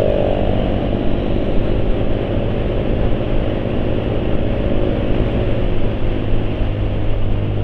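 A vehicle engine running steadily at an even speed.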